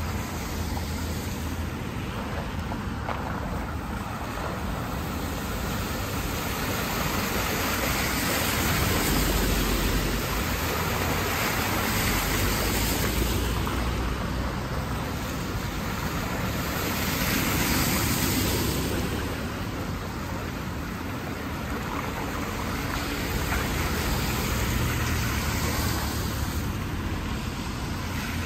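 Cars passing on a flooded, wet road, their tyres hissing through the standing water. The steady noise swells and fades four times as each car goes by.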